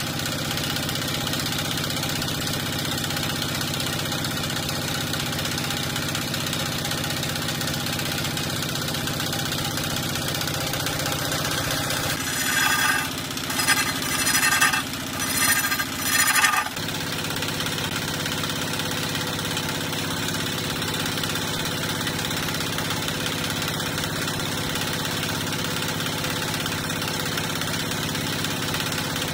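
A wood lathe's drive engine runs steadily throughout. About twelve seconds in, a hand chisel cuts into the spinning log for about four seconds, a run of loud, uneven scraping bursts that stops abruptly.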